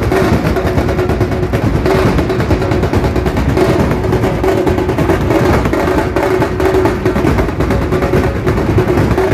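Group of dhol drums beaten hard with sticks in a fast, continuous Muharram matam rhythm, the strokes dense and without a break.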